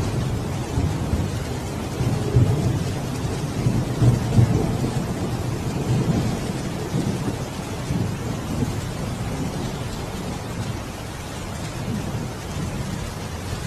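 Waterfall: a steady, deep rush of falling water, easing slightly toward the end.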